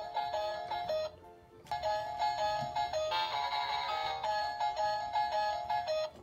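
Electronic tune played by an animated dancing Snoopy plush toy. It breaks off about a second in, starts again half a second later, and stops abruptly near the end.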